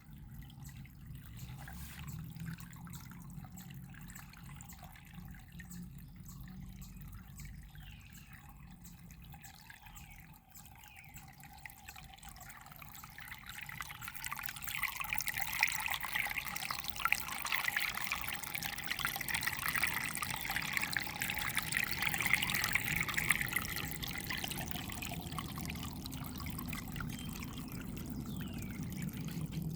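Water trickling and dripping steadily, louder from about halfway through.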